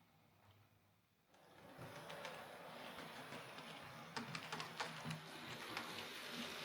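Hornby OO gauge Battle of Britain class model steam locomotive running on its track. Its small electric motor and wheels start up about a second and a half in and run on steadily, with scattered clicks. It is running again now that the broken tender wires have been repaired.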